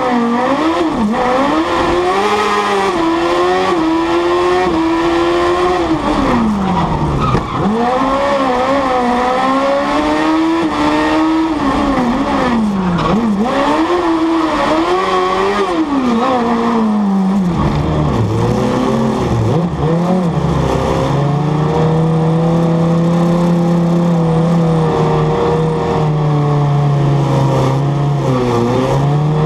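Honda 600cc engine of an Ape Car Proto three-wheeler, heard from inside the cab, revving up and down over and over for the first half. After a drop in pitch about two-thirds of the way in, it holds steadier revs, with tyres squealing as the Ape drifts.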